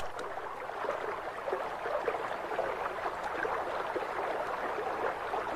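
Soft, steady underwater water ambience, a low gurgling wash without any tune or voice.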